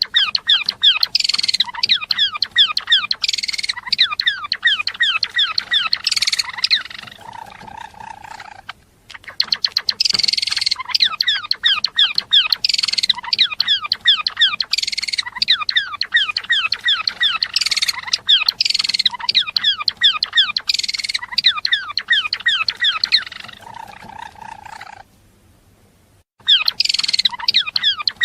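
Java sparrow singing: long bouts of rapid high chips and clicking notes, each bout closing with a lower, drawn-out note, with a short pause between bouts about nine seconds in and again near the end.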